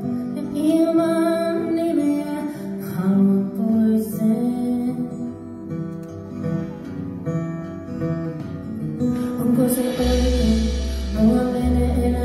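Live band music with a female singer over sustained instrumental notes; a deep bass note comes in about ten seconds in.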